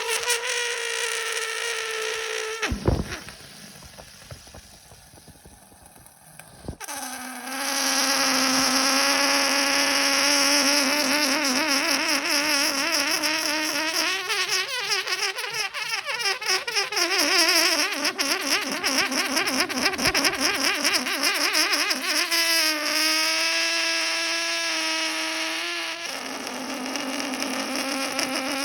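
Air squealing out through the stretched neck of a balloon: a long, buzzing squeal that wobbles and shifts in pitch, with a sharp snap about three seconds in, then a few seconds of quiet before the squealing starts again.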